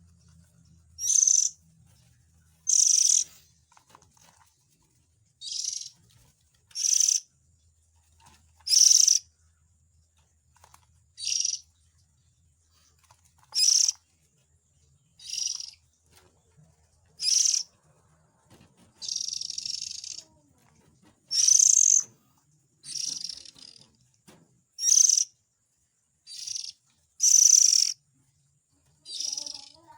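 Oriental magpie-robin calls used as a trapping lure: a series of short, harsh rasping calls, each about half a second long, repeated every second or two.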